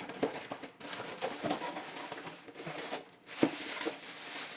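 Packaging and a plastic car-stereo dash frame being handled while unboxed: rustling and crinkling with many small clicks and taps, and one sharper knock about three and a half seconds in.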